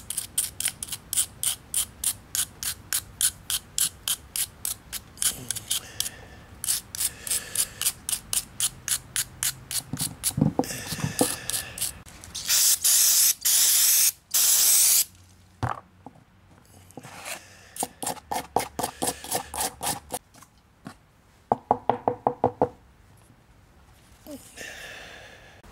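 Plastic brush scrubbing a diesel generator's oil strainer screen in quick back-and-forth strokes, about three a second, in several runs, cleaning out break-in metal shavings. In the middle, a spray can of solvent hisses in two bursts of about a second each.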